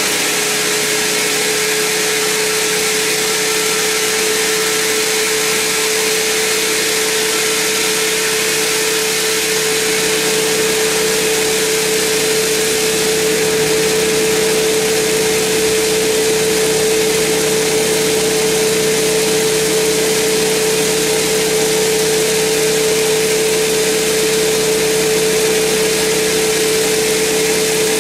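Sawmill band saw cutting lengthwise through a large mahogany log: a steady, unbroken hum from the running saw over the noise of the blade in the wood.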